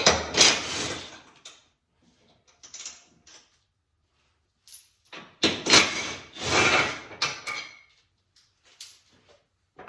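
Hand-tool work on the engine-bay brace bar: a socket wrench on its bolt and nut and the metal bar being worked loose, heard as several short bursts of mechanical rattling with silent gaps, the longest about two-thirds of the way through.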